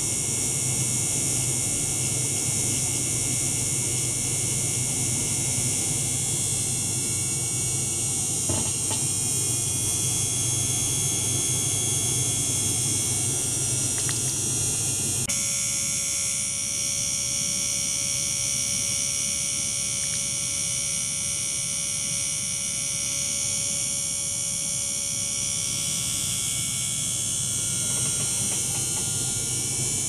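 Small electric circulation pump motor running with a steady buzz and a high hiss. About halfway through, the low hum drops away and a steady mid-pitched tone takes over.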